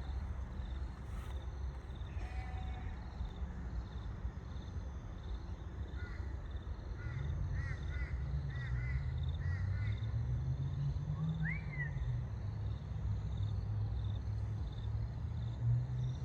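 Creek water running with a steady low rumble, louder in the second half. Birds call over it in a quick run of short chirps midway, then give one rising-and-falling call.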